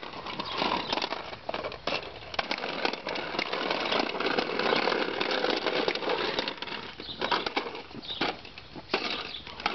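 Plastic push-along popper toy with a clear dome, rolled over a concrete sidewalk: a busy, irregular clicking and rattling of its wheels and the toy.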